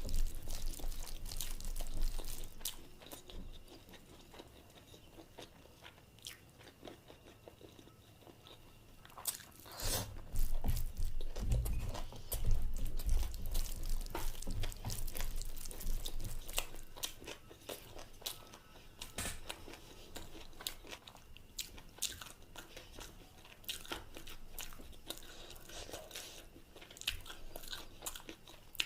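Close-up sounds of a person biting and chewing food, with many short crisp clicks and mouth noises; the chewing is louder and busier in the middle stretch.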